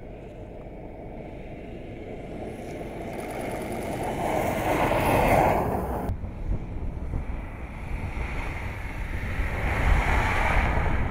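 A Fiat 500X crossover driving past on snow and ice: a rushing sound of engine and tyres throwing up snow builds to a peak about five seconds in and cuts off suddenly, then a second pass builds up again near the end.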